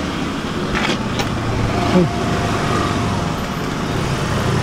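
Steady street traffic noise, with a couple of sharp clicks about a second in and a short falling cry about two seconds in.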